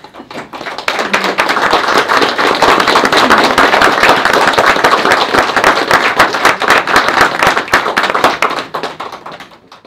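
Audience applauding, swelling up over the first second, then steady dense clapping that dies away near the end.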